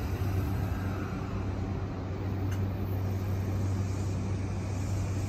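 E235-1000 series electric train starting to pull out of a station, under the steady hum of its rooftop air-conditioning units, which on a warm day are noisy. A single short click comes about two and a half seconds in.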